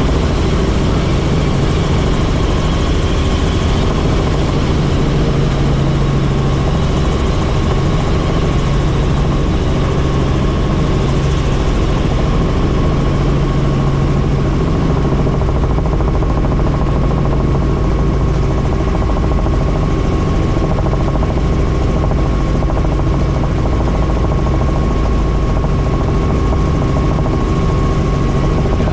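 Helicopter in flight: steady turbine and rotor noise with a constant low hum and a thin higher tone, unchanging throughout.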